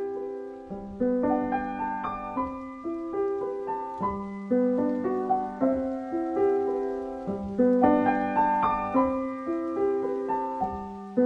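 Background piano music: a melody of struck notes, each dying away after it is played.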